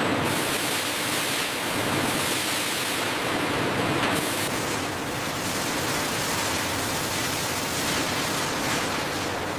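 Steady rush of water pouring and spraying through a washing line.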